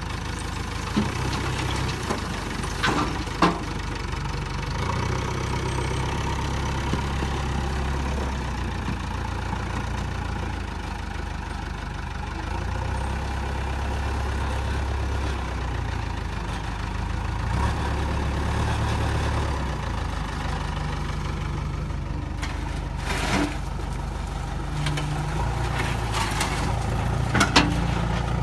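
Diesel engines of a backhoe loader and tractors running, the engine note swelling and easing every few seconds as the machine works, with a few sharp metallic clanks.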